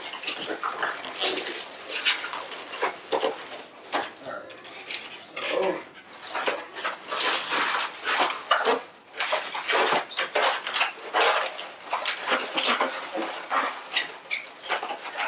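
Latex twisting balloons squeaking and rubbing against one another as they are squeezed, twisted and locked into pinch twists. The squeaks come in a dense, irregular run of short bursts.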